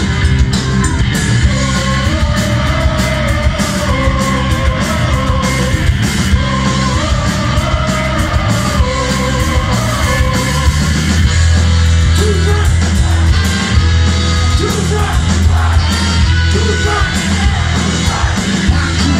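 Live punk rock band playing loud: electric guitar, bass and drums with a shouted lead vocal. The vocal line drops away about eleven seconds in and a heavy, held bass chord carries the rest.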